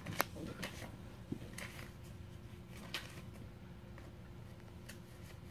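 Faint light taps and rustles of paper being handled against the edge of a whiteboard, a few scattered clicks with the sharpest just after the start.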